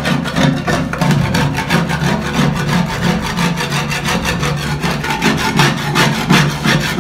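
Paint being scraped off a textured glass pane by hand, a tool rasping across the glass in quick back-and-forth strokes; the paint has been softened with paint remover.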